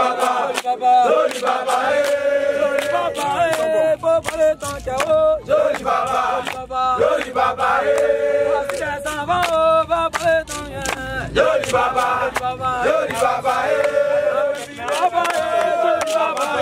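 A group of young men chanting a supporters' song together, with hand claps.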